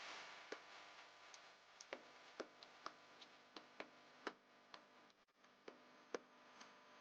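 Faint, irregularly spaced light clicks and taps, about twenty of them, as of small hard objects knocking together.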